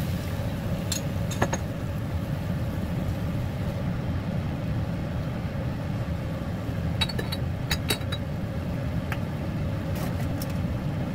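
Steady low hum of a kitchen fan running over the stove, with a few light clinks of a glass bowl and bottle about a second in and again around seven to ten seconds in.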